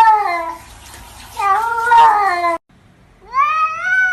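Cat meowing: long, drawn-out meows that rise and fall in pitch, one ending about half a second in, a second cutting off abruptly, and a third rising one starting near the end.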